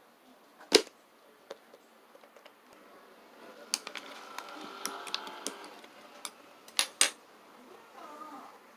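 Mixed slime being squeezed and pressed by hand: sharp pops of trapped air, a stretch of fine crackling about four to six seconds in, and two loud pops in quick succession near the end.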